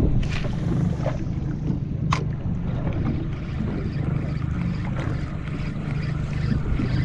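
Steady low rumble of wind and water around a small open fishing skiff at sea. Just after the start comes a brief swish as a spinning rod is cast, and a sharp click follows about two seconds in.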